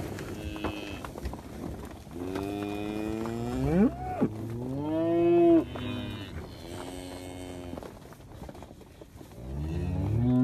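Young cattle (calves) mooing, four calls one after another, the first rising sharply in pitch as it ends and the last starting near the end.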